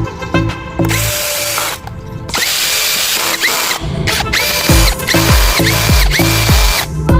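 A power tool motor running in about six short bursts, each whining up to speed and winding down, over background music.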